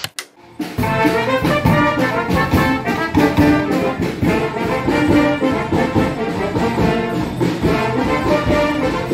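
Brass band music with trumpets and trombones, starting about a second in after a brief sound under the opening logo.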